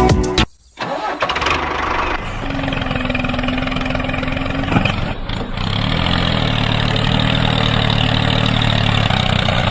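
A small engine starting up, with a brief whine partway through, then running steadily at an even pitch.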